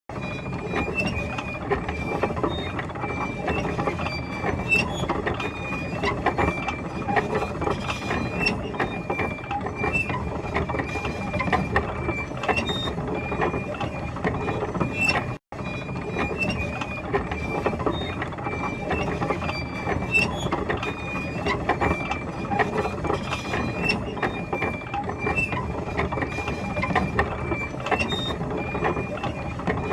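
Tank running, with its tracks clattering continuously over a low rumble and a high squeal recurring every second or so. The sound cuts out for a moment about halfway through.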